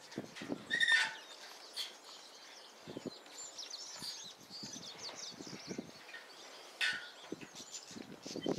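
Birds calling in the bush: two short, loud, harsh calls, about a second in and again near seven seconds, over faint high chirping throughout. Scattered soft, low knocks run underneath.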